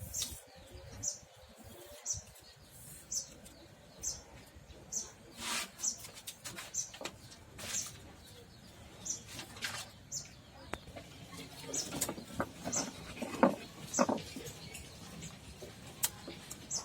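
A bird chirping over and over with short high notes, about two a second, with scattered knocks and clicks of handling that grow louder in the last few seconds.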